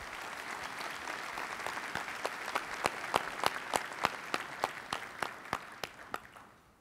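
Audience applauding, with a few sharp single claps standing out about three a second; the applause fades out near the end.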